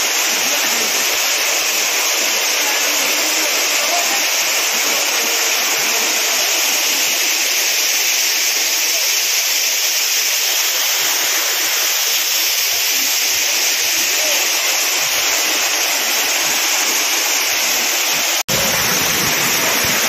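Steady rushing of a waterfall, mostly a high hiss with little low rumble. It breaks off for an instant about eighteen seconds in and comes back fuller and deeper.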